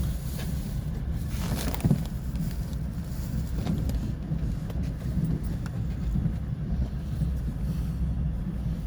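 Passenger train running at speed: a steady low rumble, with a brief rushing noise about a second and a half in.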